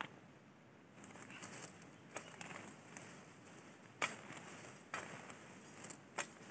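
Hand sickle cutting grass: irregular crisp crunches as stalks are cut and pulled, about one a second, with rustling of the grass between; the sharpest cut comes about four seconds in.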